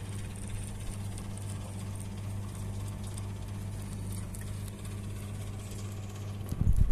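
A rabbit chewing a green leaf: a rapid run of small crisp clicks over a steady low hum. Near the end, loud low rumbling thumps start.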